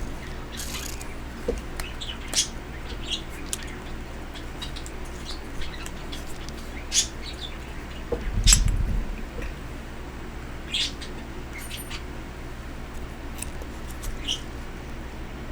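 Pet birds chirping now and then in short, high calls. A single louder thump comes about eight and a half seconds in.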